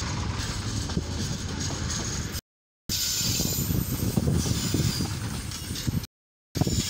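Container wagons of a freight train rolling past, a steady rumble and rattle of steel wheels on rail, with faint high-pitched squeals joining in after about three seconds. The sound cuts out completely twice, for about half a second each time.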